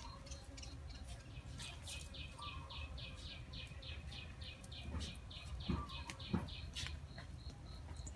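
A bird calling in a rapid, even run of short high chirps, about five a second, for about five seconds. A few soft knocks from the fish and bamboo skewer being handled come near the end.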